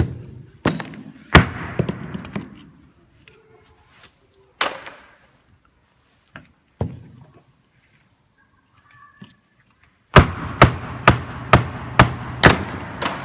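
Stainless steel rings and bearings being knocked together into place during a press-fit assembly. First a few scattered sharp knocks, then a quick run of about seven strikes near the end, roughly two a second, each with a short ring.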